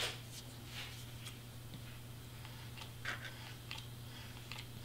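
Faint handling noises at a craft table: a few light taps and rustles as cardstock is lifted and a tool is picked up, over a steady low hum.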